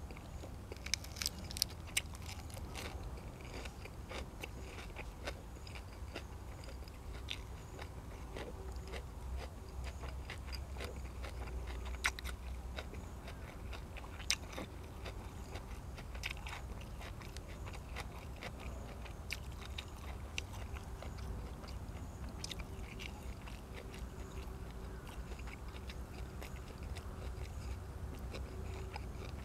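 Close-up chewing and biting while eating stewed pork ribs with fresh vegetables: wet chewing with scattered sharp clicks and crunches, a quick cluster of them in the first couple of seconds and two louder ones about midway, over a low steady hum.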